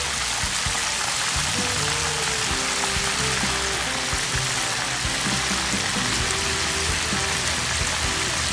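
Fish frying in a pan of hot oil: a loud, steady sizzle with bubbling, over quiet background music.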